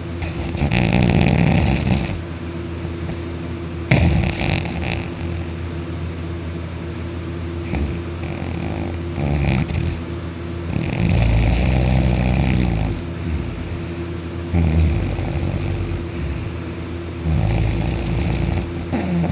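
Loud snoring in deep sleep, one long snore every three to four seconds, about six in all.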